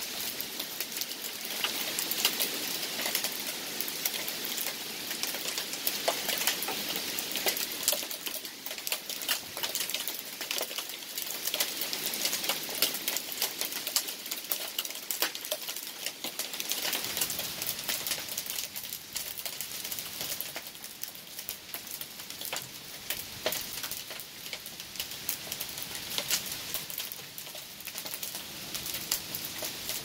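Steady heavy rain, with a dense patter of individual drops striking close by.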